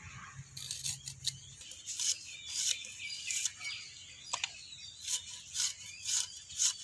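Onions being finely chopped with a blade: a run of short, irregular crisp cutting strokes, with small birds chirping faintly in the background.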